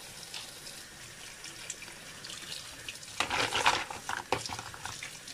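Tap water running into a colander of mussels in a sink as they are scrubbed with a wooden brush. From about three seconds in, louder splashing with short clicks as mussels are handled under the stream.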